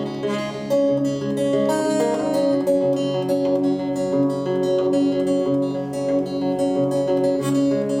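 Solo acoustic guitar playing a steady rhythm of ringing chords, the instrumental introduction of a song before any singing comes in.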